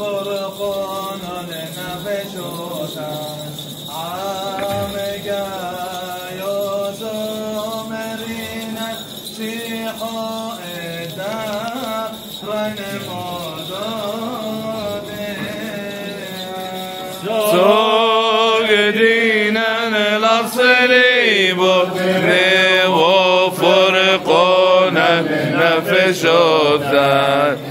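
Liturgical chanting by men's voices: a melodic chanted line over a steadily held low drone note. About seventeen seconds in, more voices join and the chant becomes clearly louder and fuller.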